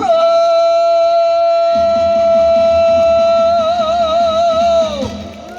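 A woman's singing voice holds the final note of a trot song for about five seconds: it stays steady, then wavers with vibrato and falls away near the end. A backing track enters about two seconds in.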